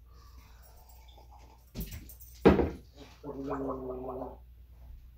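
A man gargling a mouthful of milk with his head tilted back: a steady, pitched gargle about a second long, near the end, after a short sharp sound about halfway through.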